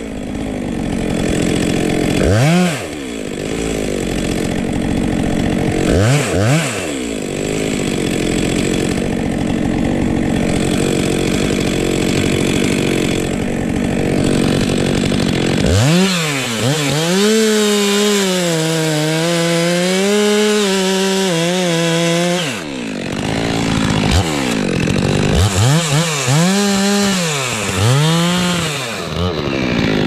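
Stihl MS 462 C-M two-stroke chainsaw sawing through spruce at full throttle. The engine note rises and falls as the throttle is eased and opened again between cuts, with quick revs up and down near the end.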